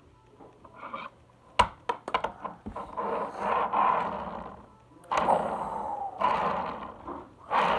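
A toy doll stroller being taken out and handled: a few clicks and knocks, then two long stretches of rustling and scraping.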